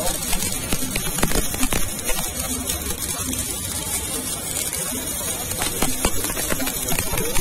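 Stick (MMA) welding arc from a Rhino 120A welder, crackling and sizzling steadily, with irregular sharp pops.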